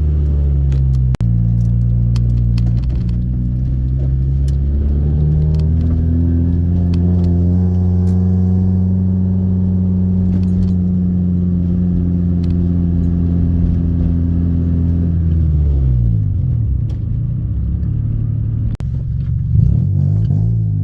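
Honda EK Civic's single-cam four-cylinder with a full header-back exhaust, heard on the move: a steady engine note that drops in pitch as the car slows about two-thirds of the way through, then climbs again near the end.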